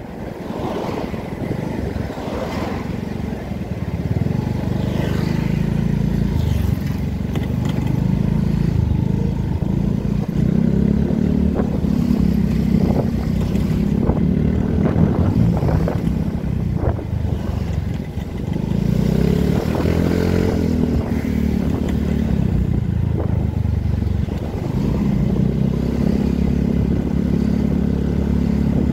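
Yamaha scooter's small engine running under way, its pitch rising and falling several times as the throttle is opened and eased in traffic, with wind noise on the microphone.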